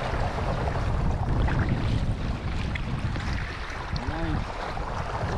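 Wind buffeting the microphone over the steady rush and splash of water along a sailing kayak's hull. A brief rising-and-falling call, like a distant voice, comes about four seconds in.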